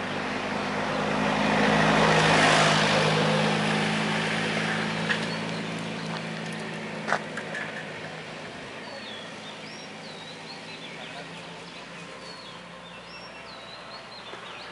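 A vehicle passes along the road, its noise swelling to a peak about two seconds in and fading out, with its low engine hum gone by about eight seconds; two sharp clicks come in between. After that a bird calls repeatedly in short rising-and-falling whistled notes.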